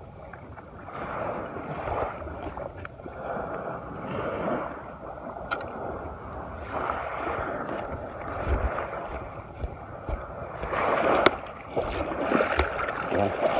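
Small waves lapping and washing against the shore, the sound swelling and fading every second or two, with a couple of sharp clicks, the louder one about eleven seconds in.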